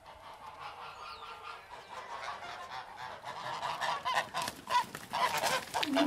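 Geese honking, many short calls close together, growing louder toward the end.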